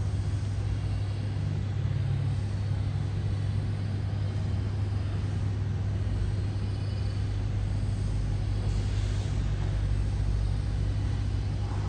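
A steady low hum with a rumble beneath it, running evenly throughout.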